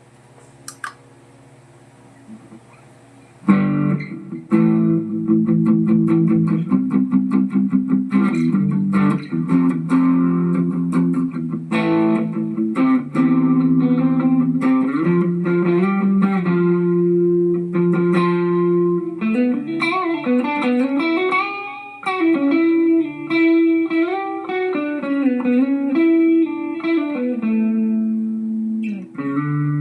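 Electric guitar played through a Mooer GE150 Pro Li multi-effects processor: a short quiet start, then chords from about three and a half seconds in, turning to single-note lead lines with bends in the second half.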